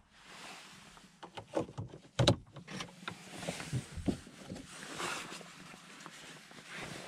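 Getting into a BMW E90 3 Series: knocks and rustling as the driver settles into the seat, the driver's door shutting with a solid thud a little over two seconds in, then the seatbelt webbing rustling as it is drawn out.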